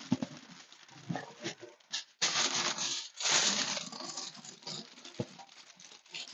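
Aluminium foil crinkling and rustling in several bursts as it is pressed and folded around the lid of an electric roaster.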